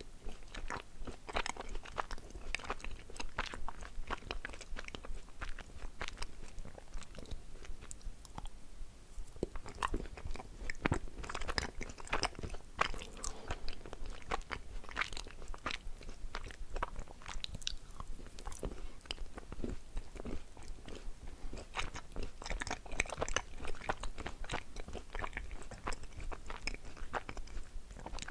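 Close-miked chewing and biting of halva: a continual run of small crunches and wet, sticky mouth clicks, with a short lull about eight seconds in.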